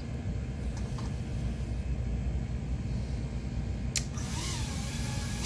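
Low, steady background rumble with a single sharp click about four seconds in and a faint brief whine just after it; the drone's motors are not yet pulling.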